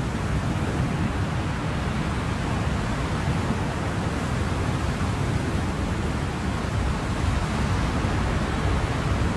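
Ocean surf: a continuous wash of waves, strongest in the low rumble, with no single wave crash standing out.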